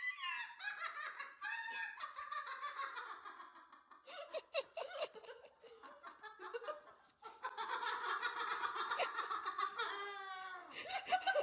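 Pet cockatoo mimicking human laughter: high-pitched giggling in short bursts, with a quieter lull in the middle.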